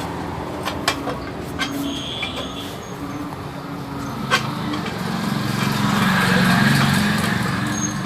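A low, rapidly pulsing drone made of many overlapping calls, swelling about six seconds in, with a few sharp clicks over it. Its source is unexplained, but people locally say it is frogs calling.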